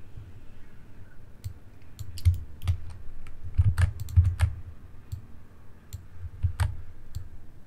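Computer keyboard keystrokes and mouse clicks, irregular and in small clusters, with soft low thuds. They are densest between about two and four and a half seconds in.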